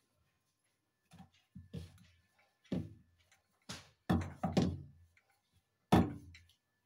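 Wooden rolling pin knocking against a round wooden pastry board as dough is rolled out: about seven hollow wooden knocks at uneven intervals, each ringing briefly, the loudest about four and six seconds in.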